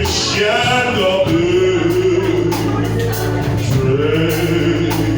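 A male voice singing a slow gospel worship song with long held notes, over sustained instrumental accompaniment.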